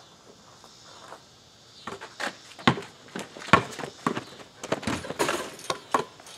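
A basketball bouncing on an asphalt driveway as it is dribbled in a run of sharp, irregular bounces, starting about two seconds in.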